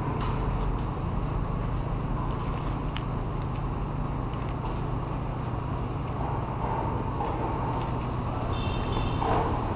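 Motorcycle engine idling steadily, with a few light metallic clicks about two and a half to three and a half seconds in.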